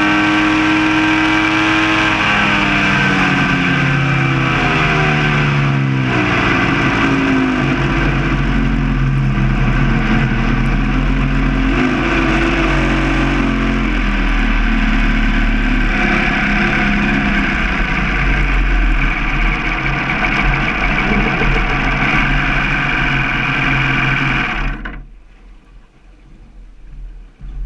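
Mercury Racing 225 ProMax V6 two-stroke outboard running at high speed, with wind and water rush. Its pitch falls over the first few seconds as the throttle eases, then it runs steadily until the engine sound cuts off suddenly near the end as the boat comes off plane.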